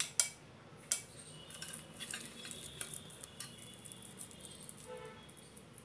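Light clinks and scrapes of a metal cookie cutter and a steel pan against a glass plate: a few sharp clicks in the first second, then soft clicking and scraping as halwa is scooped from the pan.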